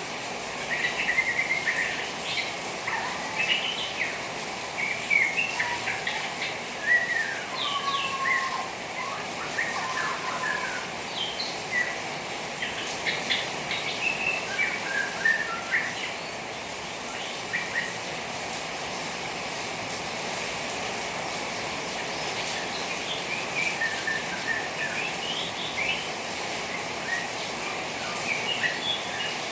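Juvenile white-rumped shama chattering in short, scattered chirps over a steady hiss of rain water. The calls thin out in the middle and pick up again near the end.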